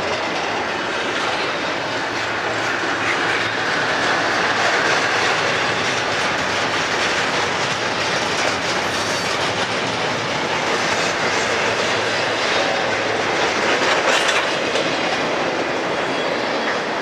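Double-stack intermodal freight train's container well cars rolling past at trackside: a steady noise of steel wheels on rail, with occasional clicks.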